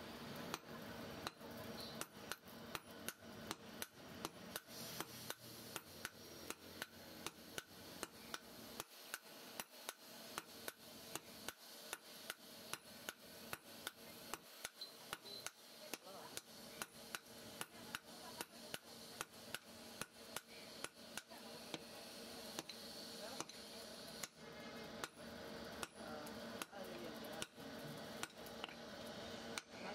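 Hand hammer striking red-hot rebar on a steel anvil block, a steady run of sharp metal-on-metal blows at roughly two to three a second as the bar is forged.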